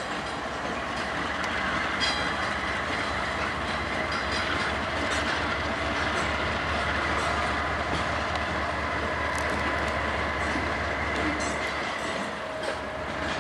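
Freight train cars rolling past close by, their wheels clattering on the rails with a thin, steady high squeal over the rumble. The low rumble drops away about twelve seconds in.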